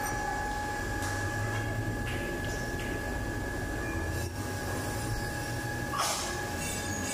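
Steady hum of workshop machinery left running, with a constant two-note whine over a low drone. A short metallic clank comes about six seconds in as tooling is handled.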